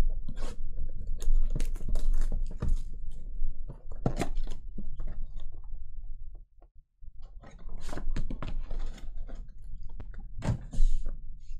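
Sports card boxes and a foil card pack handled on a padded table: a run of knocks and thunks, then crinkling of the pack's foil wrapper in the hands.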